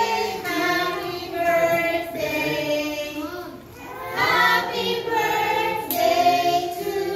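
A group of young children singing together in unison, in long held notes, with a short lull about three and a half seconds in.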